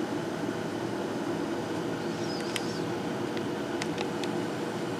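Steady low background hum, like a fan or air-conditioning unit running, with a few faint clicks.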